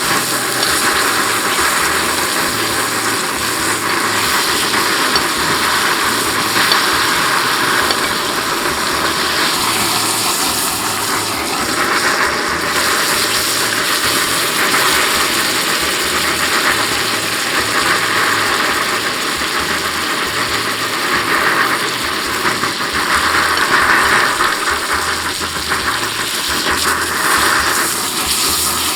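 A ribeye steak sizzling steadily in hot butter and oil in a pan while it is basted.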